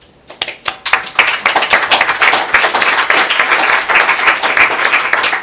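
Audience of a few dozen people applauding, individual claps audible within the sound. It builds up within the first second, holds steady, and starts to die away at the end.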